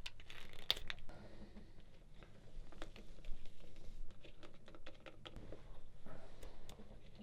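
Rustling with a series of irregular light clicks and taps from things being handled up close.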